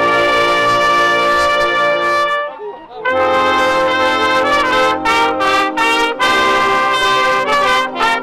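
A small brass band led by trumpets playing a tune. The band breaks off briefly about two and a half seconds in, then comes back in with shorter separate notes.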